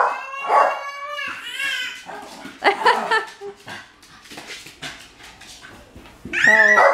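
A long-haired Jack Russell terrier barking and whining, excited by a toy waved above its head, with high, gliding whines early on and a louder cry near the end.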